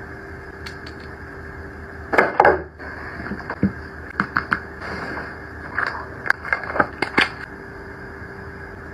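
Hands handling cosmetic cases and packaging: a scrape or rustle a couple of seconds in, then a series of short light clicks and taps, over a steady background hiss.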